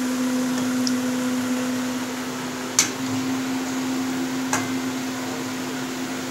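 Malpuas sizzling as they deep-fry in oil in a metal kadai, over a steady hum. A slotted metal spoon knocks sharply against the pan twice, the first knock the loudest.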